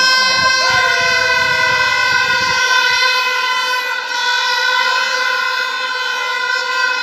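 A loud, steady horn-like tone held at one pitch without a break, over crowd noise that drops away about two and a half seconds in.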